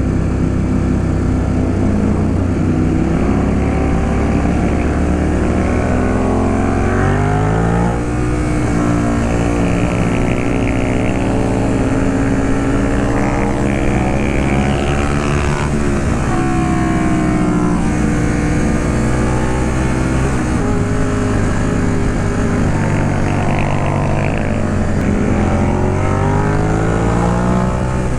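Ducati Monster 821's L-twin engine running hard at road speed. Its pitch climbs through the revs and drops back at each gear change, several times, over a steady rush of wind.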